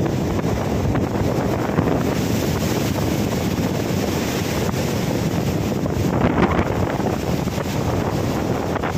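Rough sea surf breaking and foaming over shoreline rocks, with wind buffeting the microphone. One wave surges louder about six seconds in.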